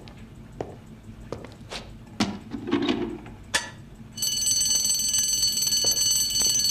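A few scattered sharp clicks and crackles, then about four seconds in a red electric fire alarm bell starts ringing, loud and unbroken.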